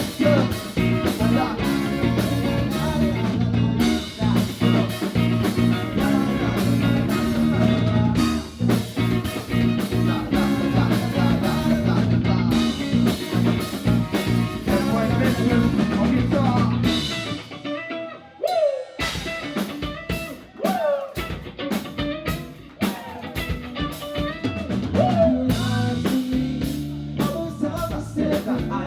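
A live band playing with drum kit and guitar. About seventeen seconds in, the bass and drums drop out to a sparse break with a few sliding notes, and the full band comes back in about a week-long seven seconds later.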